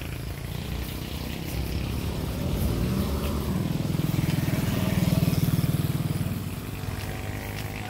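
A car and then a small motorcycle passing close by; the motorcycle's engine is the loudest, swelling to a peak about five seconds in and fading as it moves away.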